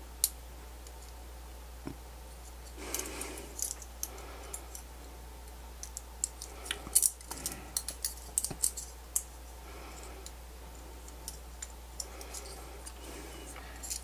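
Scattered light clicks and soft rustles of a thin single-strand copper wire being threaded through small holes in a 3D-printed plastic adapter and handled between the fingers.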